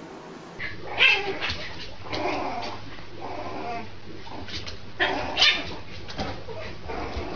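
Puppy yipping and giving small high barks and whimpers in a string of short calls, the loudest about a second in and again near five seconds.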